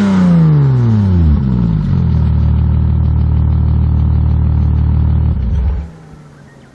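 Alfa Romeo 155 V6 engine through an aftermarket OVER exhaust (front pipe, centre and rear mufflers), its revs falling back from a blip for about two seconds and then idling steadily. The engine sound stops abruptly about six seconds in.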